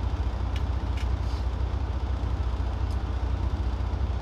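Steady low rumble of an idling truck engine heard inside the cab, with a couple of faint clicks about half a second and a second in.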